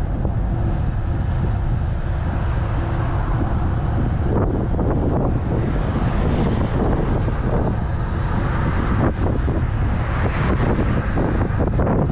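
Wind buffeting the microphone of a handlebar-mounted camera on a moving road bicycle: a steady, loud low rumble with uneven fluttering.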